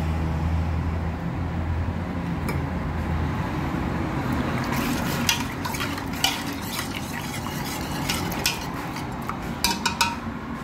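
Metal spoon stirring rice in water in a steel pot, clinking and scraping against the pot from about halfway through, with a quick run of knocks near the end. A low hum fades out in the first few seconds.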